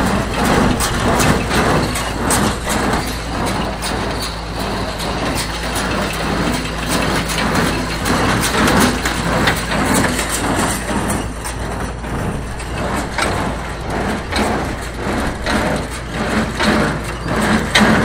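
Oliver small square baler running off a tractor's power take-off at slow speed, knocking in an even rhythm over the steady tractor engine as it packs loose hay.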